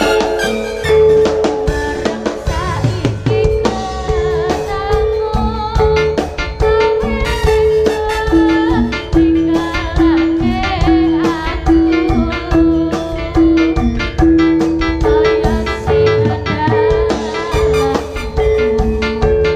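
Jaranan dance accompaniment music: steady drumming under a short melodic note repeated over and over, which moves to a lower note for several seconds midway and then goes back up.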